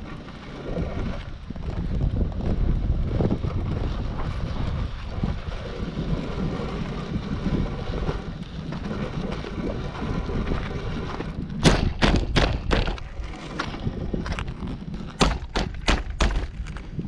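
Wind buffeting the microphone with a steady low rumble. About two-thirds of the way in, a quick run of sharp clicks starts, two or three a second, and keeps going to the end.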